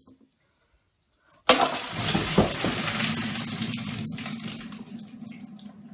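A sudden loud burst about a second and a half in, after near silence, followed by a dense hissing, crackling noise that fades over the next few seconds, with a steady low hum beneath it.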